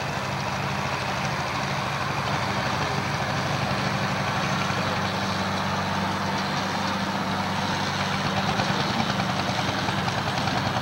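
A 1968 John Deere 3020 pro stock pulling tractor's engine running steadily at the start line, hooked to the pulling sled, with a slow slight rise in level.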